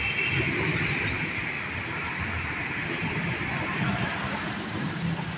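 Traffic noise: a steady rush of passing vehicles, with a low rumble underneath.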